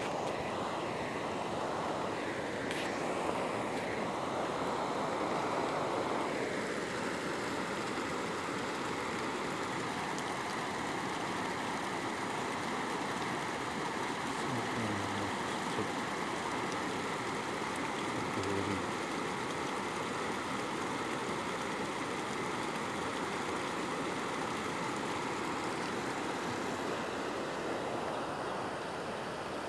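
Steady rush of water from a rocky stream tumbling over small rapids, an even hiss that shifts slightly about six seconds in.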